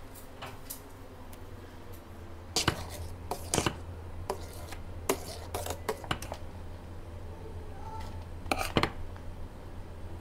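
Metal utensil clinking and knocking against a stainless steel saucepan while thin noodles are stirred and lifted in the water, a few sharp knocks at a time, over a steady low hum.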